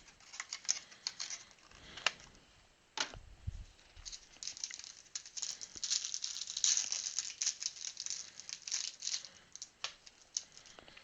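A trading card pack being opened and handled: crinkling and tearing of the wrapper and cards shuffling, with a couple of sharp clicks early on and the busiest crinkling from about four seconds in.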